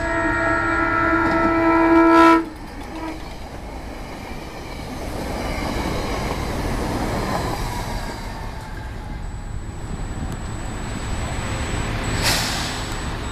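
SEPTA electric commuter train sounding its horn in one long chord that cuts off abruptly after about two and a half seconds, followed by the steady rumble of the train running past on the rails. A short burst of hiss comes near the end.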